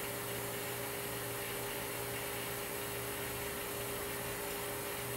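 Steady electrical hum of a powered-up home-built CNC router standing idle, with its spindle head holding still. No stepper motion is heard because the test program failed to start.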